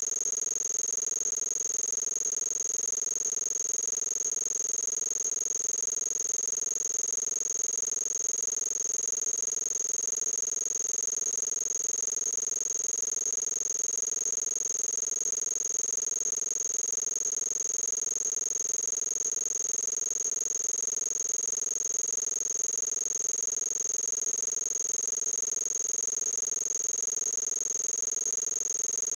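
A steady, unchanging electronic tone: a strong high-pitched whine with a lower hum beneath it, pulsing rapidly and evenly like a fast buzz or ratchet.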